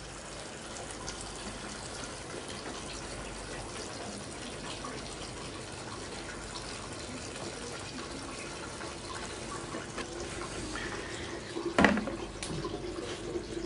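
Runoff water trickling steadily off a watershed demonstration model into a bucket: the simulated rain reaching the outlet. There is a brief thump near the end.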